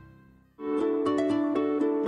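Background music fades out, and about half a second in a TV programme's jingle starts: a quick run of short bright notes over held chords.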